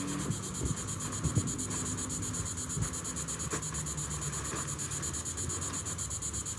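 An inflatable kite's fabric being folded and handled, with scattered soft rustles and knocks, over a steady low hum.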